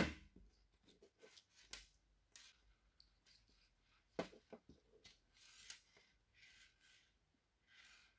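Faint clicks and soft rustling of hands handling stripped wires and small plastic parts, the butt connectors and pre-cut heat-shrink pieces. The sharpest click comes about four seconds in.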